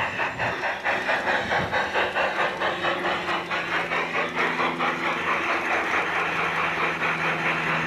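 G-scale model steam locomotive running on a garden railway, with an even chuffing beat of about five a second over a steady motor hum.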